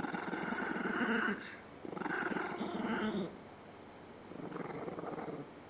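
Small dog growling in three long rough spells: one running to just over a second in, a second from about 2 to 3 seconds, and a weaker third about 4.5 to 5.4 seconds in.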